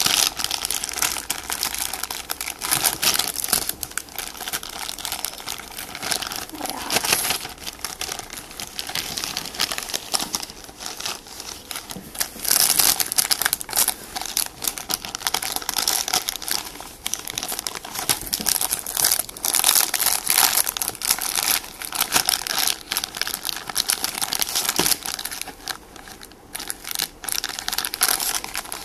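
Clear plastic toy bags crinkling and crackling in the hands as they are handled, irregular and without pause, louder in stretches around the middle.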